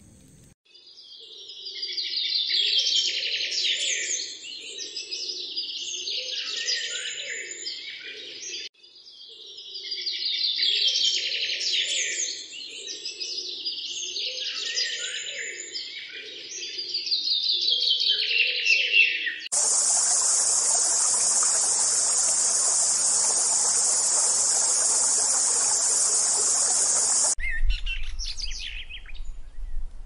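Birds singing and chirping in one passage that is heard twice, near-identical, then a steady high insect drone that holds for about eight seconds and stops abruptly.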